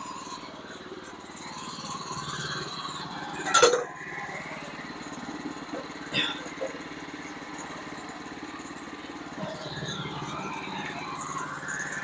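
Portable band sawmill's gas engine idling steadily, with a loud sharp knock about three and a half seconds in and a lighter one around six seconds.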